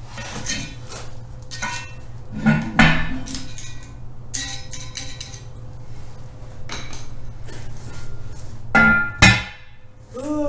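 Metal clanks and clinks as a steel differential cover is set onto a Ford (Sterling) 10.5 axle housing and its bolts are started by hand. Two clusters of louder knocks come about two and a half seconds in and again about nine seconds in.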